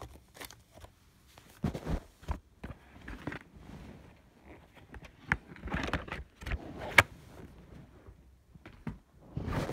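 Irregular handling noise: clicks, knocks and rustling as plastic video cases are shifted about and the camera is handled, with one sharp click about seven seconds in.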